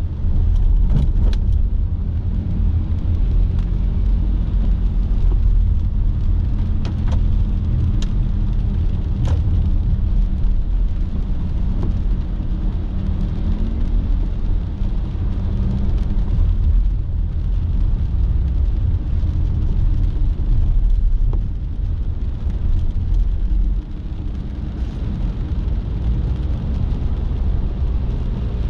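A car being driven, giving a steady low rumble of engine and road noise, with a few sharp ticks in the first ten seconds.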